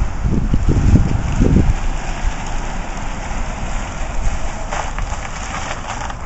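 A car moving slowly past close by: a steady hiss of road and tyre noise, with wind buffeting the microphone for the first couple of seconds.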